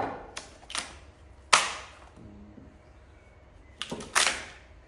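A chisel being struck to chop waste out of a green oak beam: about six sharp, uneven knocks, the loudest about a second and a half in, with a quiet stretch before two more near the end.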